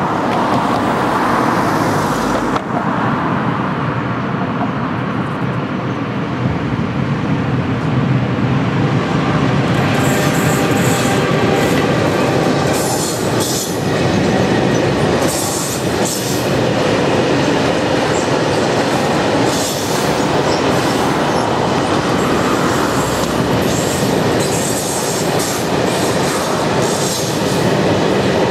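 Freight train hauled by an Italian E.652 electric locomotive running past, its long rake of covered sliding-wall wagons rolling by with a steady rumble and clickety-clack of wheels over the rails. From about ten seconds in, repeated high-pitched wheel squeals and sharp clatters join the rumble.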